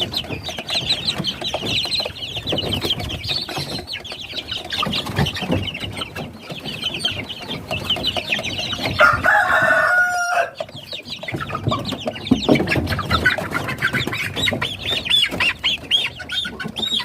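Kampung chickens of Bangkok and Kuntara fighting-cock stock clucking with many short high peeps throughout. A rooster crows once, just past nine seconds in.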